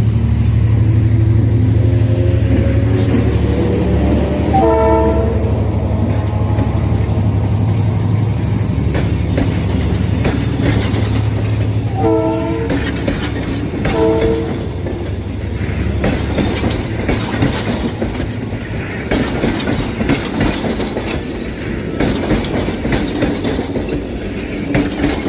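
G22W-AC diesel-electric locomotive running under power, its engine rising in pitch as it throttles up. The horn sounds three times: a longer blast about five seconds in, then two short ones. In the second half come rapid rhythmic clicks of the wheels over rail joints as it rolls along.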